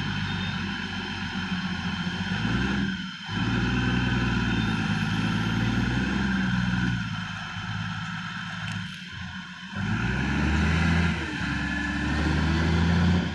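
Heavy diesel engine running under changing load, its revs rising and falling, with brief drops about three seconds in and near ten seconds.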